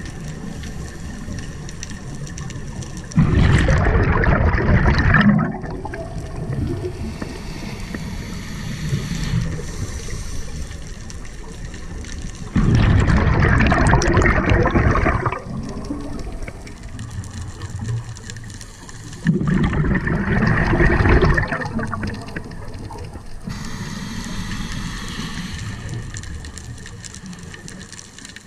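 A scuba diver breathing through a regulator underwater: three loud rushes of exhaled bubbles, each lasting two to three seconds and coming several seconds apart, with a quieter steady hiss between them.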